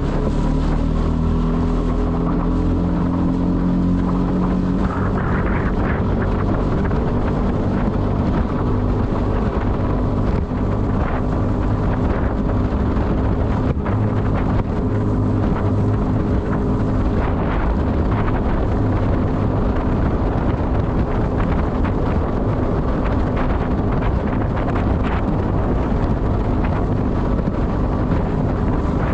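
Mercury 6 hp short-shaft outboard running steadily with the skiff planing at speed, its engine note mixed with wind buffeting the microphone and water rushing past the hull.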